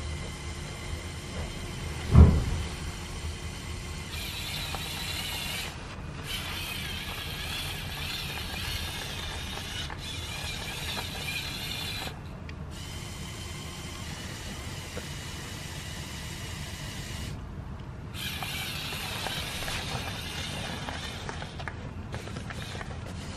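Lego Technic 42030 Volvo L350F wheel loader's electric motors and plastic gears whirring as it drives through snow, starting and stopping several times. A single heavy thump about two seconds in.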